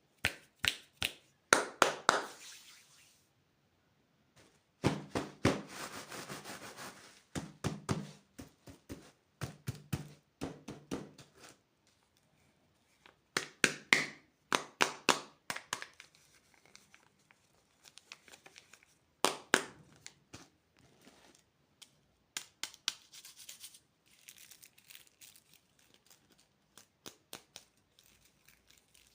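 Plastic candy wrappers and packaging being handled, torn open and crinkled, in bursts of crackling and sharp clicks with short pauses between.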